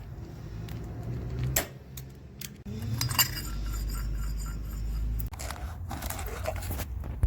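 Metal hand tools clinking and rattling, with a few sharp clicks: a Torx bit socket and socket wrench being handled.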